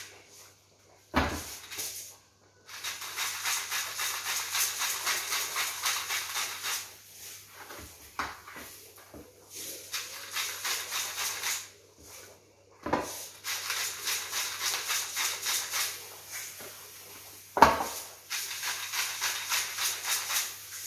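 Coarse salt grinder being twisted over steaks: a fast, even crunching rattle in several spells of a few seconds each. A few sharp knocks fall between the spells, the loudest about eighteen seconds in.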